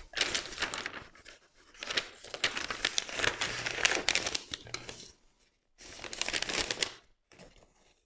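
Self-adhesive decorative film being pulled back and its paper backing liner handled, crinkling and crackling in three spurts with short pauses between.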